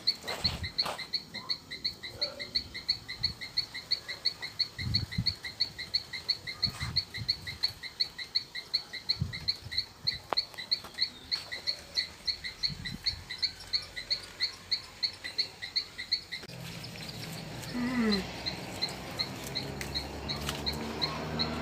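An animal chirping steadily, short high chirps about three times a second, with a few faint dull knocks. A low rumble comes in past the middle.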